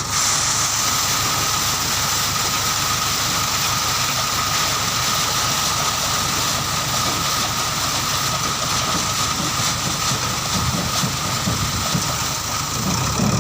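Heavy diesel engine running steadily, with a steady high whine over the engine noise.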